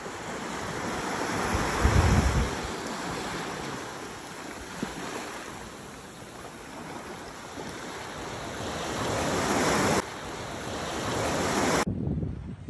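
Sea waves breaking and washing up the shore, swelling and easing in surges. Wind rumbles on the microphone about two seconds in.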